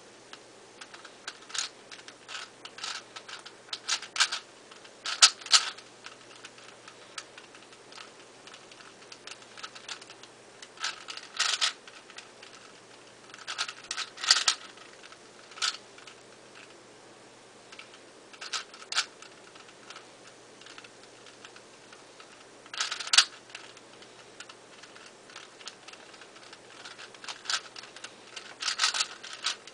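ShengShou 4x4 speedcube being turned fast during a solve: plastic layers clicking and clacking in quick bursts, with short pauses between the bursts.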